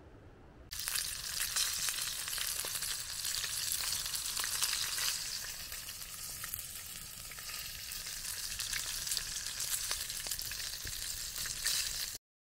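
Sausages frying in a metal mess tin over a campfire: a steady sizzle with frequent small pops and crackles. It starts suddenly within the first second and cuts off abruptly just before the end.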